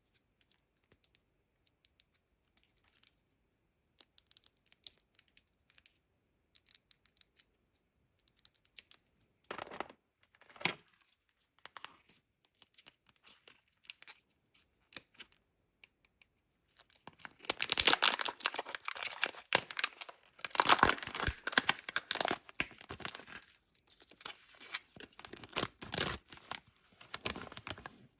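A Kinder Joy egg's wrapper being handled and torn open. Scattered small ticks and taps at first, a short rustle around ten seconds in, then loud tearing and crinkling through most of the last ten seconds.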